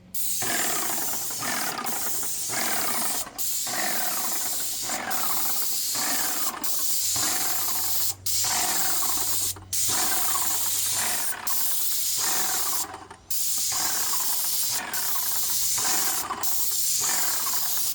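Graco Magnum X5 airless paint sprayer spraying paint: a loud, steady hiss broken by brief gaps about every one and a half seconds, as the spray starts and stops between passes.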